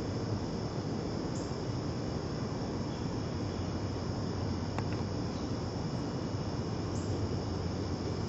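Steady high-pitched insect drone over a low rumbling hiss, with two faint clicks about five seconds in.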